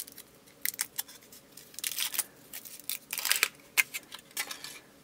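Silver foil wrapper being peeled and crumpled off a Kinder Surprise chocolate egg: irregular crinkling and crackling in short clusters.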